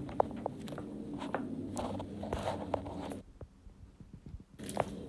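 Footsteps on a brick path with the rustle and clicks of clothing and a handheld phone. A low hum underneath drops out for about a second and a half past the middle.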